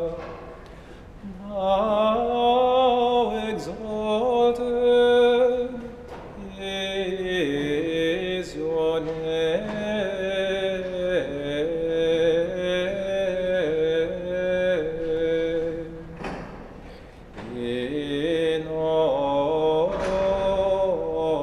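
Slow church chant sung in long phrases of held, stepping notes, with a short break about a second in and another about three-quarters of the way through.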